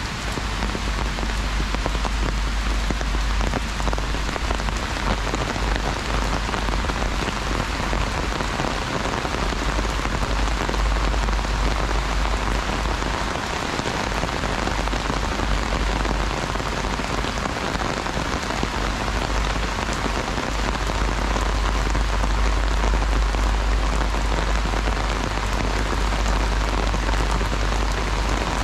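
Heavy rain drumming steadily on an umbrella overhead, a dense, even patter, with a low rumble underneath.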